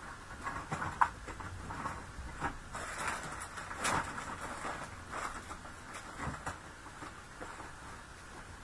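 Scattered light knocks, clicks and rustling of someone rummaging through craft supplies off-camera, looking for a packet of adhesive foam dimensionals. The loudest knocks come about a second in and about four seconds in.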